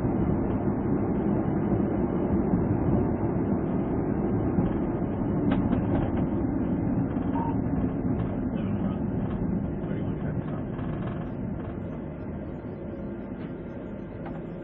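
Steady road and engine rumble of a police cruiser, recorded from inside the car by its dashcam, easing off over the last few seconds.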